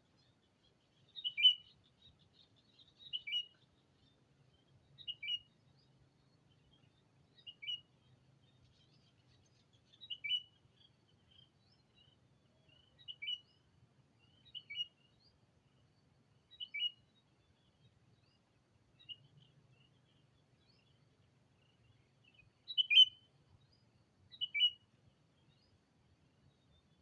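A decoy sooty-headed bulbul (kutilang) calling to draw in rivals: short, clear calls repeated about every two seconds, eleven in all, with the loudest near the end.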